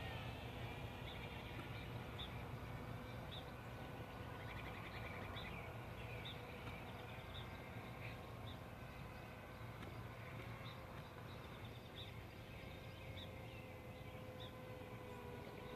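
Faint outdoor morning ambience: a bird chirping over and over with short, high notes, with a brief trill about five seconds in, over a steady low hum and faint steady tones.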